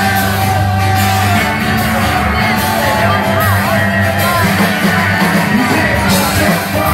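Live rock band playing loud through a PA: drums, bass guitar and electro-acoustic guitar, with a singer's voice.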